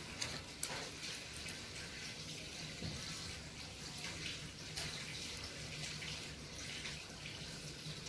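Faint, scattered small clicks and rustles of UTP cable wires being handled and straightened by hand, over a low steady hum.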